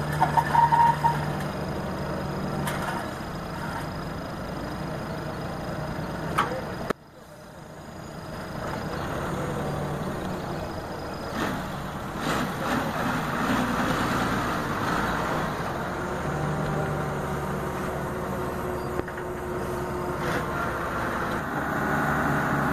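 Diesel engine of a KATO truck-mounted crane running steadily while the crane holds and slews a suspended load. A few short, louder sounds come near the start, and the sound drops away suddenly about seven seconds in before swelling back.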